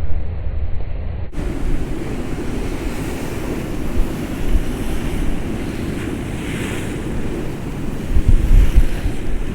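Storm surf on the North Sea surging and crashing against a sea wall, under a steady wash of strong wind. A wave splash swells up a little past the middle, and heavy gusts buffet the microphone near the end. The sound changes abruptly a little over a second in.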